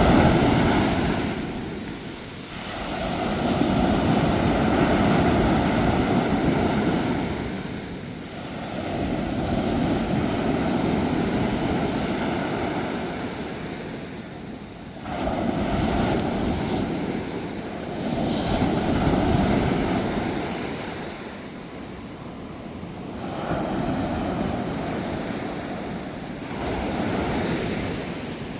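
Sea waves breaking on a shore, each one surging in and drawing back, with a new wave about every five seconds. One comes in more suddenly about halfway through.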